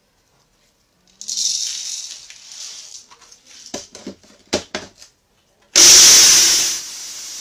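Black peppercorns rattling into the cup of an electric spice grinder, a few clicks as the cup is fitted onto the base, then the grinder's motor starts suddenly and loud about six seconds in, grinding the peppercorns, and settles to a steadier, lower run after about a second.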